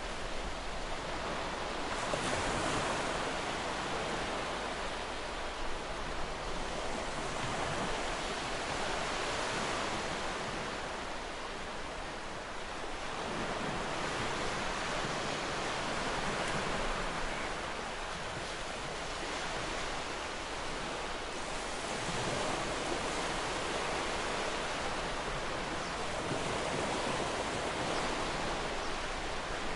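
Ocean surf: a steady wash of waves, slowly swelling and ebbing every several seconds.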